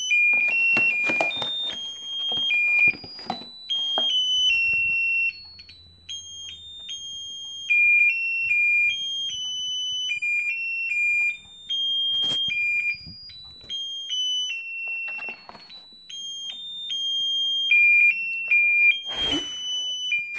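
A musical birthday candle's sound chip plays a tinny electronic tune of single high beeping notes, one after another. Handling knocks and rustles break in now and then, the loudest about a second before the end.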